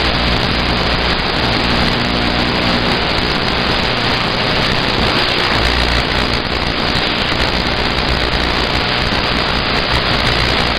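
CB radio static: a loud, steady hiss from an open channel with nobody transmitting, with a low hum underneath that comes and goes.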